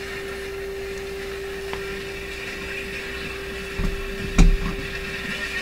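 Steady 400 Hz test tone from a signal generator, played through a Nordmende Globetraveler III radio's speaker over a hiss. About four seconds in there are two handling thumps, the second louder.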